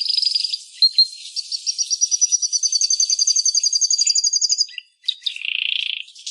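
Canary singing: a run of fast rolling trills of rapidly repeated notes, the longest lasting about three seconds, followed by a few shorter, lower notes near the end.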